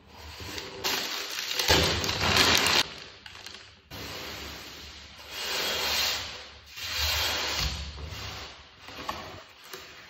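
Gloved hands handling shoe packaging: tissue paper crinkling and palms rubbing and sliding over a cardboard box. It comes in several rustling stretches, the loudest about two seconds in.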